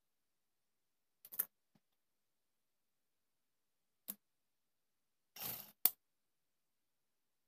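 Hands handling cloth at a sewing machine that is not running: a few sharp clicks and a short rustle of fabric, spaced a few seconds apart.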